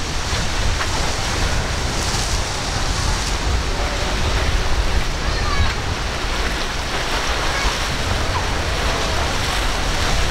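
Sea surf and wind buffeting the microphone: a steady rush of breaking water with a gusty low rumble underneath.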